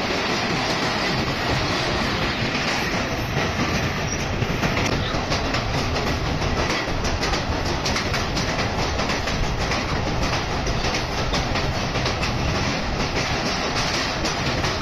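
Passenger train running across a steel truss railway bridge, heard from the coach's open doorway: a steady loud rumble of wheels on the rails, with rapid clicking of wheels over the rail joints.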